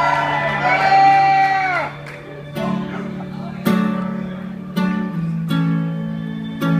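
A live band opens a song. Chords are strummed on an acoustic string instrument about once a second over a held low note, after a man's voice trails off in the first two seconds.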